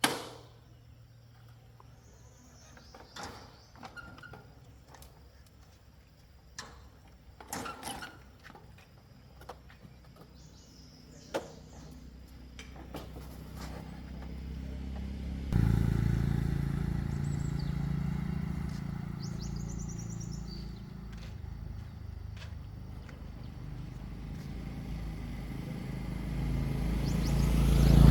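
A few knocks and short bird chirps in a quiet outdoor stretch, then a motor vehicle's engine starts suddenly about halfway through and keeps running, growing louder toward the end.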